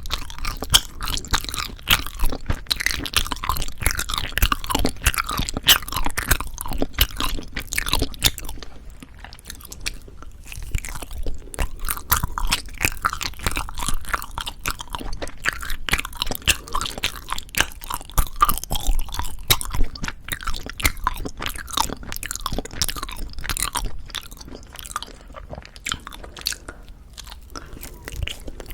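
Close-miked chewing of soft Korean rice cake (tteok): a dense, continuous run of small mouth clicks and smacks, easing off briefly around nine seconds in and again near the end.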